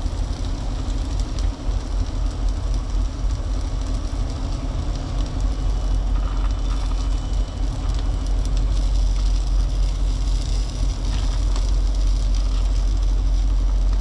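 Truck engine idling, a steady low rumble, with faint clinks of a utensil against a metal pot.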